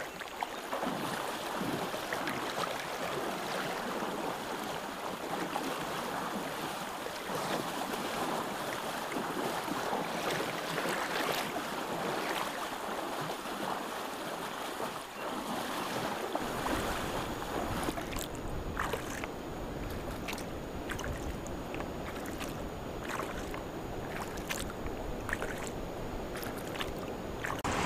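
Steady rush of moving water. About sixteen seconds in, a low wind rumble on the microphone joins it, followed by a few light knocks.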